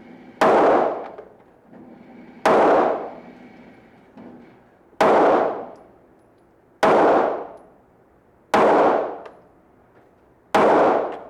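Six pistol shots fired one at a time, about two seconds apart, each a sharp crack with a short ringing tail.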